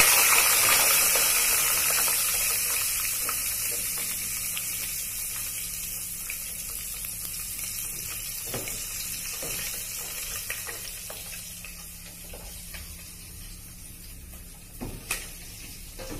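Frozen keropok lekor frying in hot oil in a pot, a steady sizzle that fades gradually. A metal spoon stirring makes a few clinks against the pot, with a louder knock near the end.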